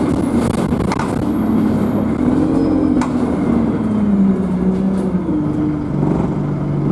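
Alexander Dennis Enviro200 bus engine running while the bus is driven, its note climbing about two seconds in and then falling lower as it eases off. A few sharp knocks come through in the first few seconds.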